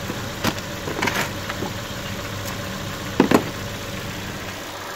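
An engine idling steadily in the background, with a few sharp clacks and knocks of tools and a plastic toolbox being handled, the loudest pair about three seconds in.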